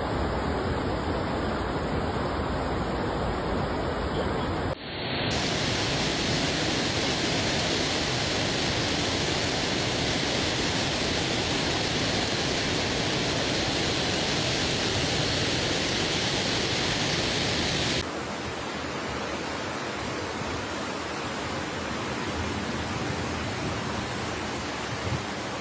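Steady rushing of floodwater torrents and heavy rain, from three separate phone recordings, so the sound changes abruptly about five seconds in and again about eighteen seconds in.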